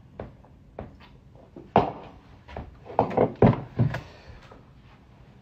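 A few knocks and thuds: a single sharp knock about two seconds in, then four more in quick succession a second later.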